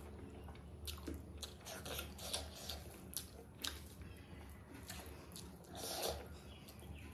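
Close-miked mukbang eating sounds: chewing a mouthful of rice and curry, with wet squishes and lip smacks, while fingers mix rice and gravy on the plate. The sounds come as a string of short, irregular clicks and smacks.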